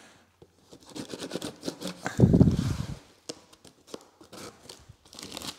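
A knife slicing through the packing tape on a cardboard box, with small clicks and scrapes of the blade and the box being handled. The loudest is one scraping rip lasting about a second, about two seconds in.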